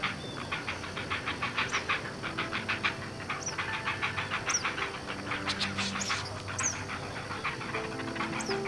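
Young great blue herons giving their rapid clattering begging call at the nest, a fast run of harsh clicks several times a second while they demand food from a parent. Faint high chirps from other birds sound over it.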